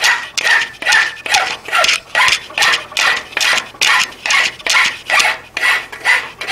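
Hand file rasping across a steel filing-vise jaw to cut a bevel on its edge, in quick, even strokes about two a second.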